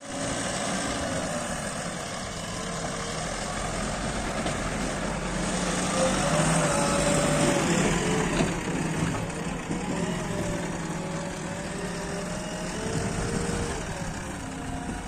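Diesel engines of a backhoe loader and tractor running steadily, with a wavering whine that rises and falls in pitch through the middle.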